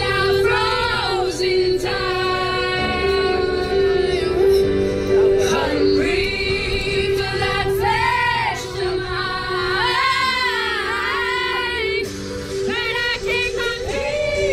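A group of teenagers singing loudly along to a song with a steady backing track, the voices sliding through long runs in the middle.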